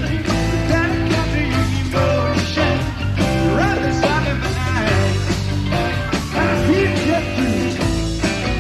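Rock music played by a band, with a steady bass and a lead line that bends up and down in pitch.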